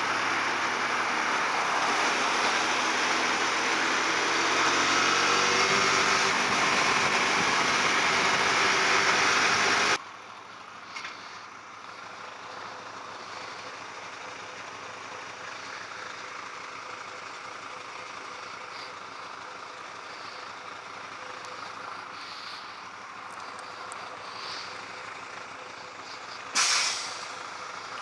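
Hyosung GT250R V-twin motorcycle engine running under heavy wind noise on a moving rider's helmet microphone. About ten seconds in it cuts abruptly to quieter idling traffic and truck engines. Near the end a heavy truck's air brakes give one short, loud hiss.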